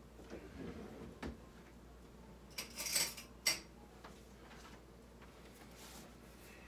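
Metal utensils clinking and clattering as someone rummages for a knife, with a few sharper rattles about three seconds in.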